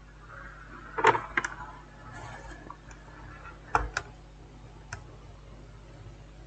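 A few light clicks and knocks from a laptop being handled and powered on at a workbench, over a faint low hum.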